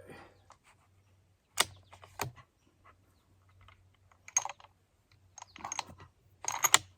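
Irregular clicks and knocks of equipment being handled: a sharp one about one and a half seconds in, a few more spread through, and a quick cluster near the end.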